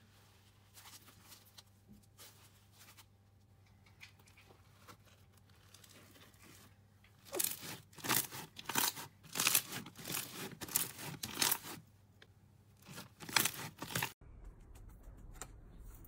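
Crunchy slime full of small beads being stretched and pressed by hand. At first there are only faint crackles, then from about halfway a run of loud crunching, crackling bursts, which stops abruptly near the end.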